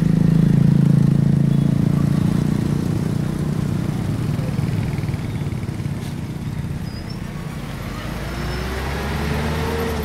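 City street traffic made mostly of motor scooters and motorbikes: a steady engine hum, loudest at the start and fading. Near the end, one engine's pitch rises as it speeds up.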